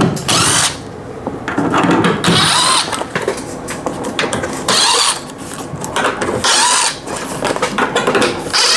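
Cordless drill-driver run in several short bursts, backing screws out so a section of wall can be taken down.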